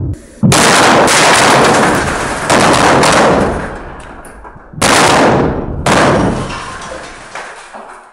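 Blasting charges detonated at a metro tunnel face, going off in a series: four explosions over about six seconds. Each is a sudden bang with a long echoing decay in the tunnel.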